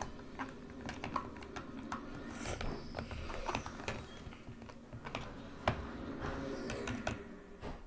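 Plastic spoon clicking and scraping against a plastic tub while stirring white glue and shaving cream into slime: a run of irregular light clicks, with one sharper knock about two-thirds of the way in.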